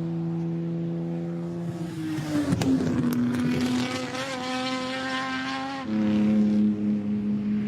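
Ferrari 250 GT SWB Competizione's V12 engine running hard on track. It holds a steady note, shifts pitch about two and a half seconds in with a couple of sharp cracks, then steps down in pitch and gets louder near six seconds in.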